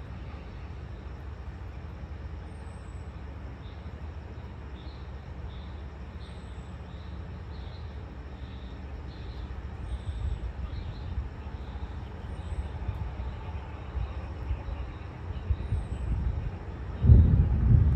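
Thunder rumbling low, building from about ten seconds in and breaking into a much louder rumble near the end.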